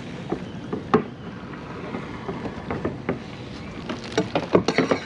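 Scattered knocks and handling noises against a steady hiss of water and wind, turning into quick crinkling near the end as a plastic zip bag is handled.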